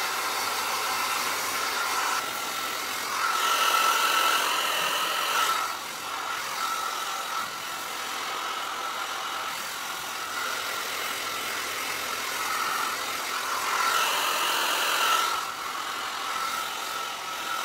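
Handheld hair dryer running steadily, a rush of air with a steady motor whine; it gets louder twice, a few seconds in and again near the end.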